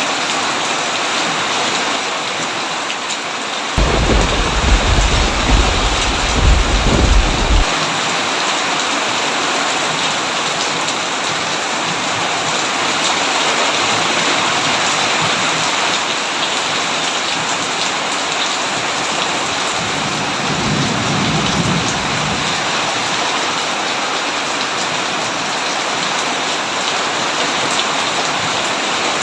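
Heavy rain falling steadily, with a loud thunderclap rumbling in suddenly about four seconds in and cutting off abruptly after about four seconds, and a softer roll of thunder later on.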